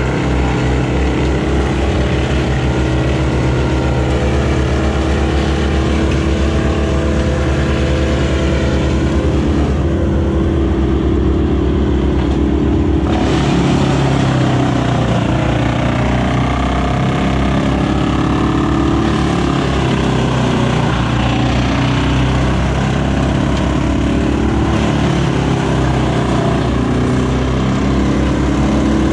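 Excavator's diesel engine running steadily under hydraulic load, close up from the operator's seat, while its arm and grab move branches; the engine note shifts about halfway through.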